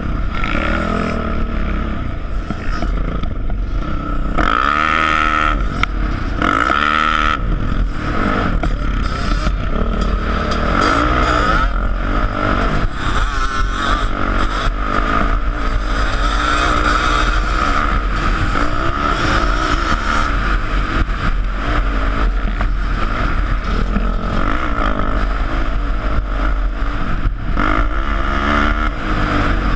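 Sport ATV engine running under throttle while riding, its pitch rising and falling as the rider works the throttle, with wind rumbling on the microphone.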